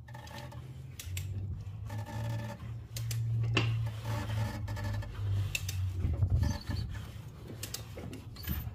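GMC Acadia 3.6L V6 being turned over slowly by hand at the crankshaft: the timing chain and cam sprockets click and rattle over a steady low hum. The clicking, with the chain hanging slack, is a sign of bad chain tension, which the mechanic pins on a cam phaser sprocket.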